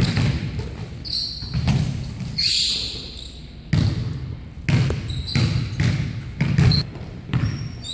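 Basketball bouncing on a hardwood gym floor in an uneven dribble, about a dozen separate thumps, with short high-pitched sneaker squeaks from players cutting on the floor of a large gym.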